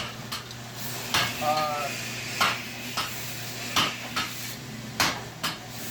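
Hammer blows on steel during forging: about five sharp metallic clanks, roughly one every second or so, over a steady low hum.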